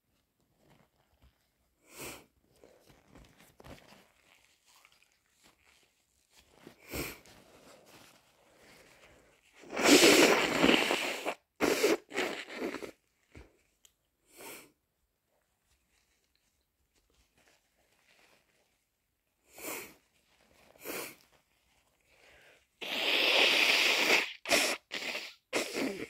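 A person with a head cold sniffling several times, with two loud, long bursts, one about ten seconds in and one near the end, each followed by shorter bursts: a massive sneeze and a nose blow.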